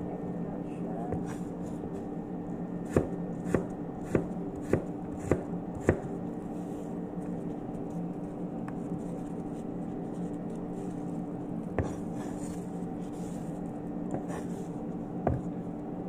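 Kitchen knife chopping red apple on a cutting board: a run of sharp knocks of the blade on the board about every half second for the first six seconds, then two more spaced-out strokes. A steady low hum runs underneath.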